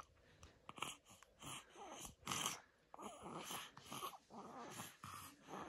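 A baby's soft grunts and sucking sounds while drinking from a small steel glass held to its lips, coming in a series of short, faint bursts.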